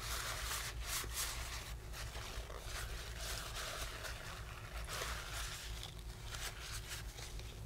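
Faint rustling and small scratchy handling noises, over a steady low hum.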